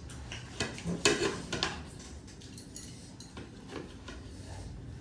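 Cutlery clinking and scraping against plates and bowls while food is served and eaten, with a few sharper clinks about a second in.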